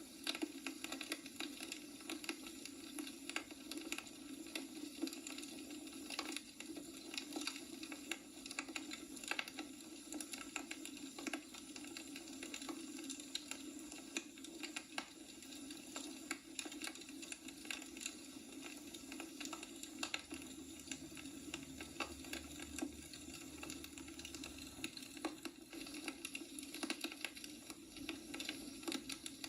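Wood logs burning in a fireplace, crackling with frequent irregular snaps and pops over a steady low hum.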